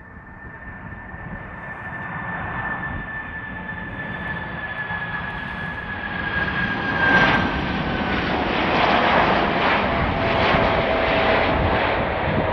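Boeing 747-400 freighter's four jet engines on final approach, growing steadily louder as it nears, with a high whine that slowly falls in pitch. The noise peaks about seven seconds in and stays loud as it passes.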